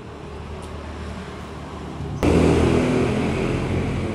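Motor vehicle engine running steadily nearby, growing louder, then much louder from about two seconds in.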